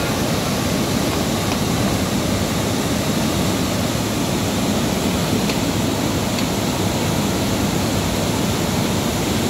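The Teesta River in flood, swollen by heavy rain, rushing and churning through a narrow concrete sluice channel: a loud, steady roar of turbulent water.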